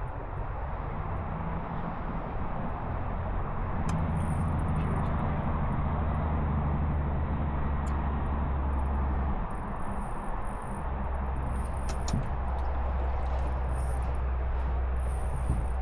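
Steady rush of flowing river water around a drift boat, with a low rumble underneath and a few faint clicks.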